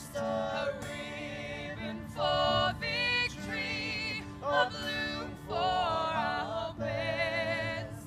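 A woman singing solo, long held notes with vibrato, in phrases with short breaths between them.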